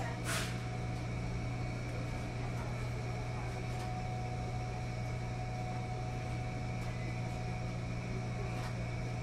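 Laundromat room tone: a steady low machine hum with two thin constant tones over it, from the rows of washing machines and the ceiling fans. A short sharp noise comes just after the start, with a few faint ticks later.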